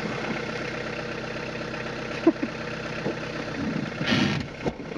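Car engine running, heard from inside the cabin, with a sharp click a little over two seconds in and a short louder noise near the end.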